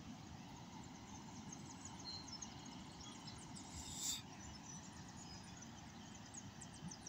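Faint riverside outdoor ambience: a low steady rumble, with quick high chirping that grows busier in the second half and a brief hiss about four seconds in.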